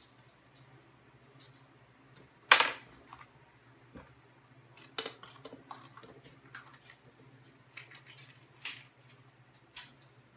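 A small knife cutting sweet banana peppers by hand over a bowl, with scattered small clicks and taps and one louder knock about two and a half seconds in. A low steady hum runs underneath.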